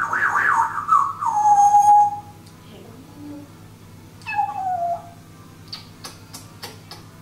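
African grey parrot making squeaky calls: a long squeaky call that slides down in pitch and ends on a held tone over the first two seconds, then a shorter falling squeak about four seconds in, followed by a few faint clicks.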